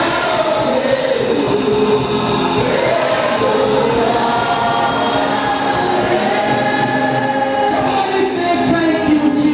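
A choir or congregation singing a gospel hymn, many voices together in held, sliding notes.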